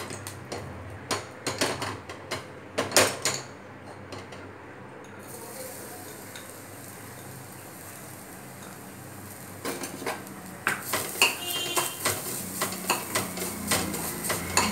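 Steel spoon clinking and scraping against an aluminium kadai as grated coconut is added to ghee and stirred: a few sharp clinks in the first few seconds, a quieter stretch with a faint steady hiss in the middle, then rapid clinking and scraping of stirring from about ten seconds in.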